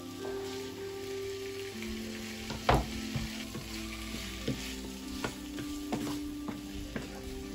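Meat and onions sizzling in a frying pan while a wooden spoon stirs them, with sharp knocks of the spoon and board against the pan, the loudest about three seconds in.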